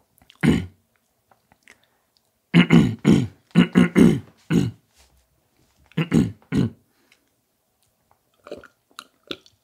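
A person's voice making short vocal sounds that are not words: one about half a second in, a quick run of about five a couple of seconds later, three more around six seconds in, and fainter ones near the end.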